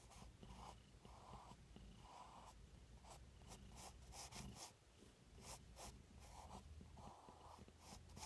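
Faint pencil sketching on paper: a series of short strokes with small taps in between.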